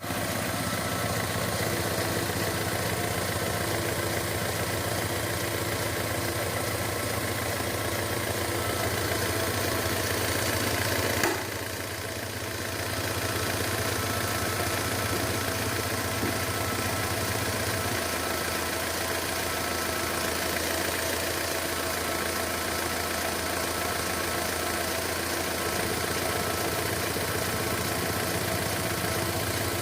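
Car engine idling steadily, briefly quieter for a second or two about eleven seconds in.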